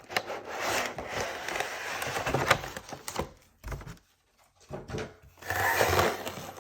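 Cardboard collection box being opened and unpacked by hand: rustling, sliding and light clicks and knocks, which pause for a moment about halfway through and start again.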